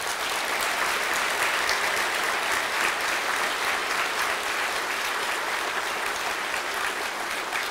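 Audience applauding steadily, many hands clapping in a hall, in response to the end of a speech.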